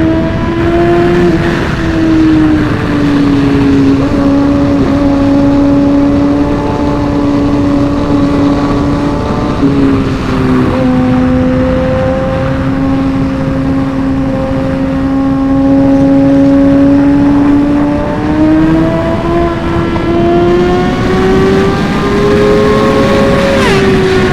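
Inline-four sportbike engine pulling hard at high revs through a canyon ride, heard from on the bike with wind rush. Its pitch holds high, steps down about ten seconds in, climbs steadily again later and eases off near the end.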